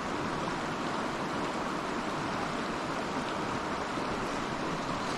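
Steady rush of flowing river water, an even hiss with no distinct splashes or other events.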